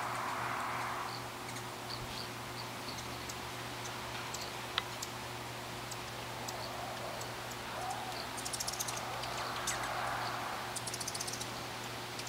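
Hummingbirds at a feeder: scattered high chip notes and two quick chattering trills, one a little after halfway and one near the end, with a soft whirr of wings at the start and again late on as a bird hovers close.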